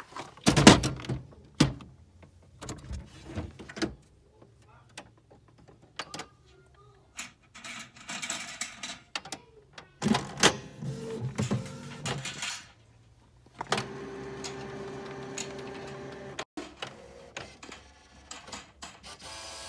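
Clicks, knocks and cardboard rustling as a Canon ink-cartridge box is handled. About two-thirds of the way in, a Canon inkjet printer's mechanism starts whirring steadily with a constant hum, broken by short clicks.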